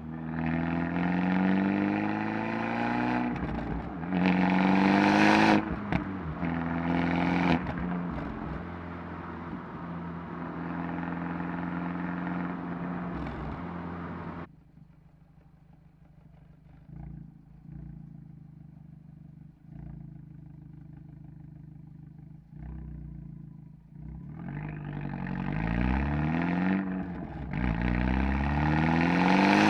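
Exhaust of an Abarth 124 Spider's turbocharged 1.4 four-cylinder through its Monza exhaust, pulling hard up through the gears, rising in pitch with short breaks at each upshift, then running steadily. About fifteen seconds in it drops suddenly off throttle and stays quiet for about ten seconds, then accelerates up through the gears again.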